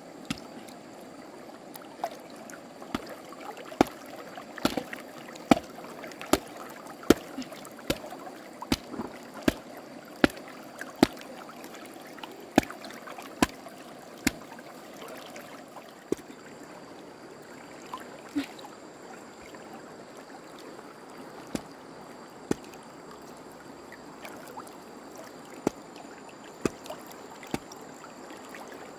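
Stream water running steadily, with a series of sharp knocks over it, about one a second for the first half and only a few scattered ones after that.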